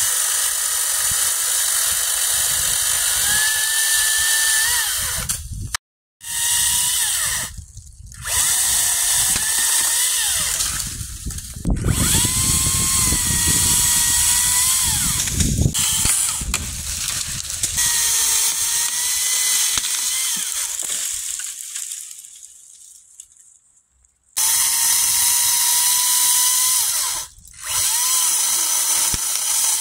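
Makita electric chainsaw running and cutting through maple limbs: a high motor-and-chain whine whose pitch sags and recovers as the bar loads in the wood. It breaks off abruptly several times and dies away once for a few seconds before starting again.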